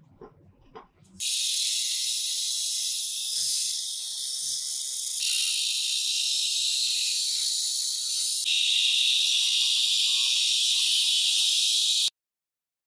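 Angle grinder with a thin cut-off disc cutting through a rusted steel tube, heard as a loud, steady high-pitched hiss that starts about a second in, changes abruptly twice, and stops suddenly near the end. A few faint clicks of parts being handled come before it.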